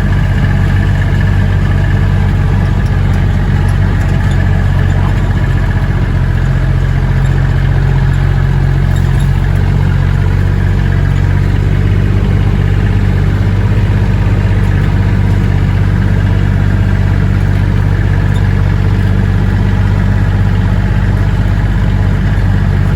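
Engine of a Kioti Mechron 2200 side-by-side UTV running steadily at a constant speed, with a low, even hum.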